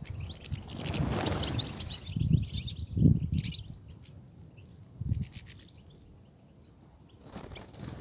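European goldfinches chirping and twittering in short high bursts, thickest about a second in and again near the end. Low dull thuds come in between, the loudest about three seconds in.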